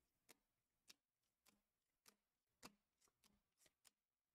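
Near silence with a faint, sharp tick repeating at an even pace, about every 0.6 seconds.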